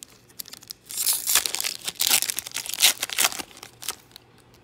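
Pokémon trading card booster pack wrapper being torn open and crinkling: a dense run of crackles that starts about a second in and lasts about two and a half seconds.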